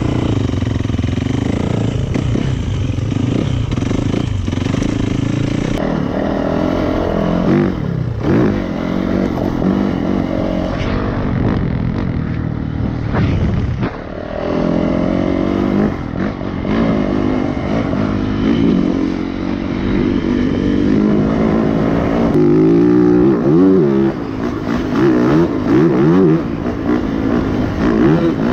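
Yamaha YZ450FX single-cylinder four-stroke dirt bike engine being ridden, its pitch rising and falling over and over as the throttle opens and closes through gear changes.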